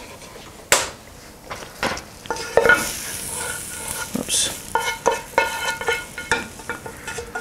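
A frying pan of cooked onions being picked up off the stove and scraped out into a glass bowl. There are a few knocks as the pan is handled, then a run of quick scraping strokes, about three a second, with a ringing note.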